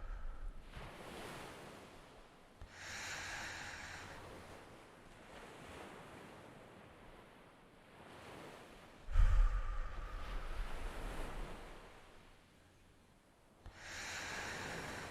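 Ocean surf in a slow cycle: a wave breaks with a sudden deep boom about nine seconds in and washes out over several seconds, with softer hissing swells rising about three seconds in and again near the end.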